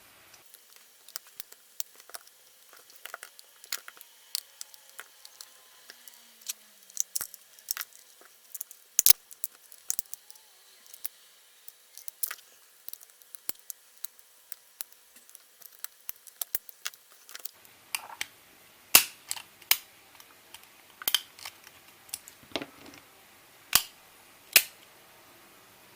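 Irregular small clicks and scrapes of plastic opening tools prying apart a first-generation iPod Nano's case, with a few sharper clicks, the loudest about nine seconds in and in the last third.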